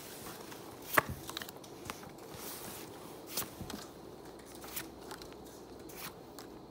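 Pokémon trading cards being handled and pulled off a stack one at a time, giving a few scattered light clicks and taps, the sharpest about a second in.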